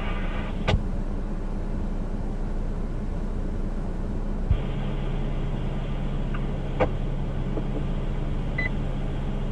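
Two-way radio receiver hissing steadily. About halfway through it clicks as a transmission opens, then carries a steady low hum of a keyed carrier with no voice on it, with a few more faint clicks.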